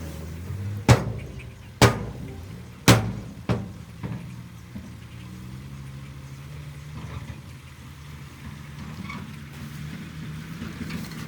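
Heavy machinery's diesel engine running steadily at a low drone, with four loud sharp bangs in the first four seconds.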